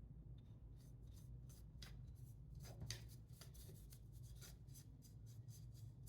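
Faint handwork on a small wooden piece: quick, irregular scratchy rubbing strokes and light ticks over a low steady hum.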